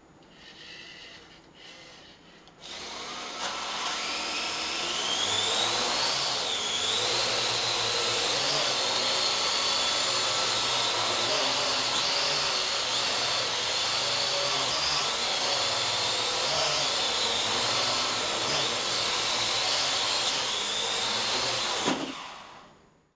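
AR.Drone quadcopter's four rotors spinning up with a rising whine about three seconds in, then running loud and steady, the pitch wavering as it is flown. Near the end there is a brief knock and the rotors wind down with a falling whine.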